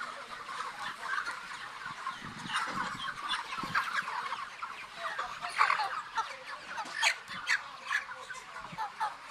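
A large flock of chickens clucking and calling together, a dense overlapping chatter with a few louder single calls standing out.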